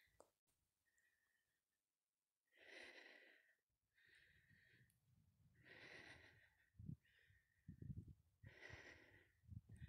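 Faint, heavy breathing of a hiker climbing a steep slope, one long breath about every three seconds. A few low, dull thumps come in during the second half.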